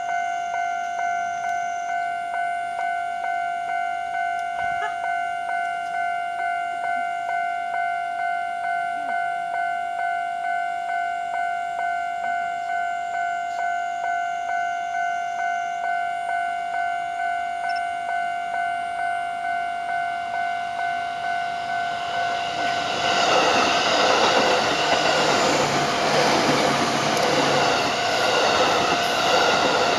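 Japanese railway level-crossing warning bell ringing in a steady, evenly repeating pulse. About two-thirds of the way through, a train comes through the crossing and its louder rumble and wheel noise take over.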